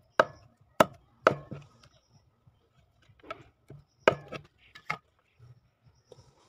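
A curved blade chopping through a fire-singed pigeon on a wooden board. There are sharp, separate chops: three in the first second and a half, then lighter cuts, then two more strong chops about four and five seconds in.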